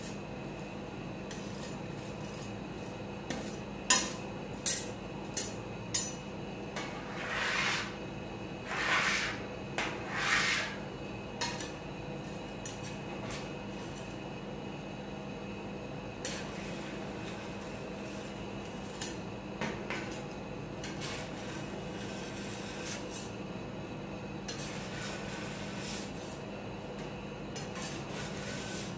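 Metal ice-cream spatulas on a stainless-steel cold plate. A few sharp taps as the frozen sheet is chopped into strips are followed by longer scraping strokes, then lighter scrapes and ticks as the strips are pushed up into rolls. A steady low hum runs underneath.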